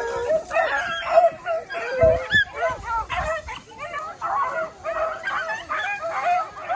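A pack of beagles baying and yelping as they run a rabbit, many voices overlapping without a break. A brief low rumble comes about two seconds in.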